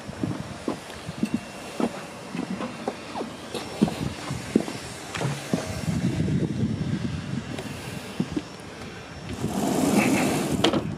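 Footsteps and small knocks on a boat's deck while walking. Near the end comes a louder rush of noise as the glass wheelhouse door is opened.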